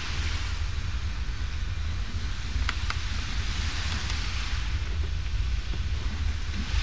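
Wind buffeting a camcorder microphone: a steady, uneven low rumble under a constant hiss, with two faint ticks a little under three seconds in.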